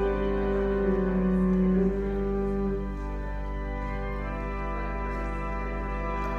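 Slow organ music: long held chords over a sustained low pedal note, the louder upper notes falling away about three seconds in.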